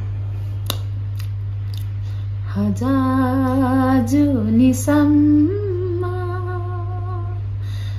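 A woman singing a slow song in long, held notes, beginning about two and a half seconds in, over a steady low hum.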